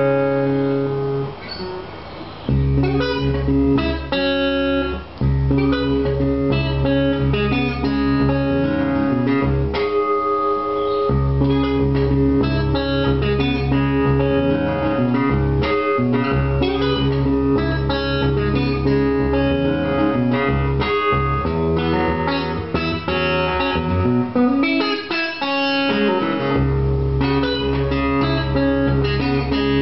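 1970s Ovation Balladeer 1111-6 acoustic-electric guitar in open D tuning, fingerpicked solo. Its bass is heavy and boomy, as it is through its EMG ACS soundhole pickup and guitar amplifier with a 12-inch speaker.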